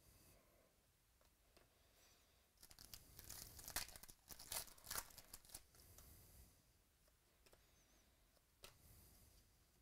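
Paper-and-plastic crinkling and tearing from a trading-card pack wrapper being ripped open and handled: a few seconds of rustling with sharp crackles in the middle, and one more short crinkle near the end.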